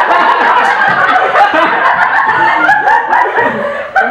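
People laughing: loud, continuous chuckling and snickering.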